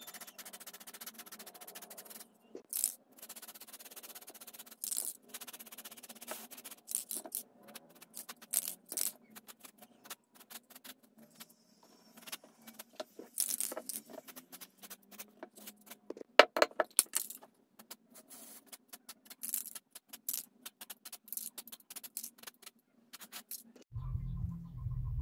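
Aerosol spray paint can: short bursts of hissing spray, with the metal mixing ball rattling inside as the can is shaken, a quick run of clicks about two thirds of the way in. Near the end a low steady rumble takes over.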